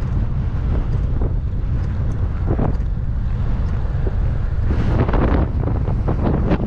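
Wind buffeting the microphone: a steady low rumble, with stronger gusts about two and a half seconds in and again through the last two seconds.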